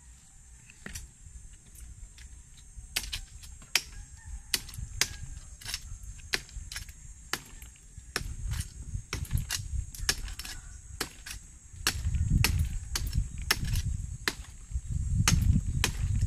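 Bolo knife striking small oyster shells (sisi) stuck to mangrove wood: sharp, irregular knocks a few times a second. A steady high-pitched hiss runs underneath, and louder low rumbling comes in over the last few seconds.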